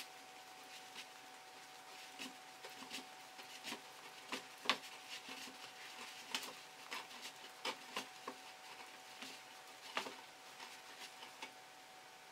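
Knitting needles clicking and tapping irregularly, with yarn rubbing, as stitches are purled by hand.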